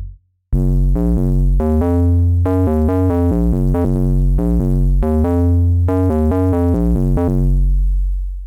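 Serum software synthesizer preset playing a short melodic phrase of changing notes and chords over a deep, sustained bass line. It comes in about half a second in after a brief gap and fades out near the end.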